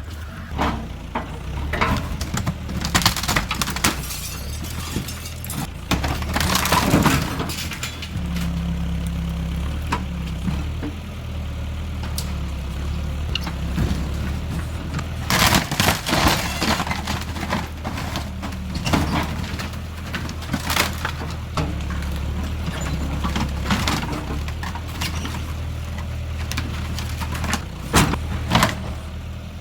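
A 1960s Ford backhoe's engine running steadily while it demolishes a house, with repeated crashes and cracks of the structure breaking apart, the loudest about 15 seconds in and near the end.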